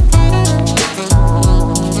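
Background music with a steady beat: bass notes, drums and guitar.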